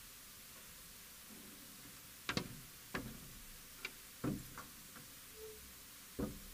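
Half a dozen faint, sharp knocks and taps at uneven gaps, each with a short ring in the church's echo, from people stirring in the wooden pews. They sit over a steady faint hiss.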